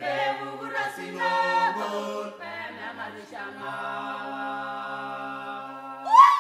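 A cappella choir singing, several voices holding notes together and moving between chords. Near the end a voice swoops up to a loud high note.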